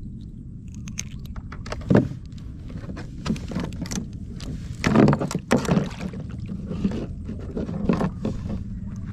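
Handling sounds aboard a small fishing boat: irregular knocks, rustles and splashy bursts from working the tackle and the catch basket over a steady low rumble, loudest about five seconds in.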